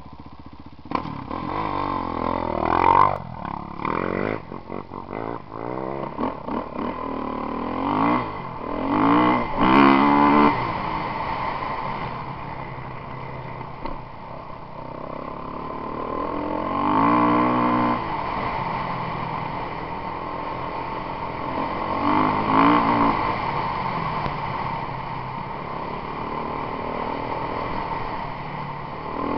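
Kawasaki KX450F motocross bike's four-stroke single-cylinder engine under way, its revs rising and falling as the rider works the throttle and gears, with several hard accelerations.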